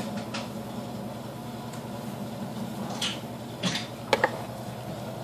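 A cat eating wet food from a small can held in a hand: a few faint soft smacks and scrapes over a steady room hum, with two quick clicks about four seconds in.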